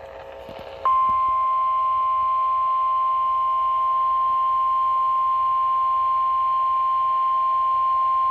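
Weather-radio emergency alert tone: after about a second of radio hiss, a single steady high-pitched tone near 1 kHz sounds at an even level. This 1050 Hz warning alarm signals that a warning message follows.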